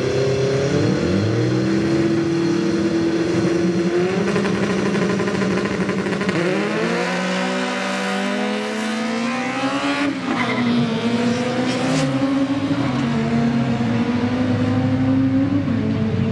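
Two Honda Civic hatchbacks' four-cylinder engines revving hard and accelerating away through the gears in a drag race. Their pitch climbs, drops at each upshift and climbs again.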